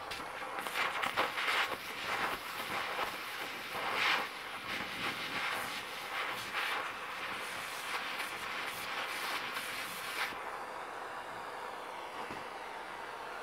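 Oxy-fuel cutting-torch flame hissing steadily as it heats a small steel hook joint, with crackling and snapping from the sparking hot steel; about ten seconds in the crackling stops and only the torch's steady hiss goes on.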